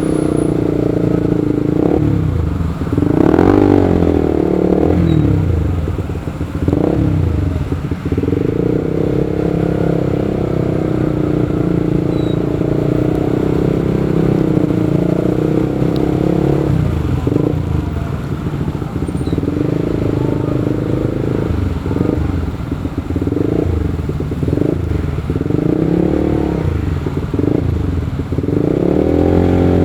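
Motorcycle engine running while riding in traffic, its pitch rising and falling with the throttle. Other vehicles pass with brief rising and falling sweeps.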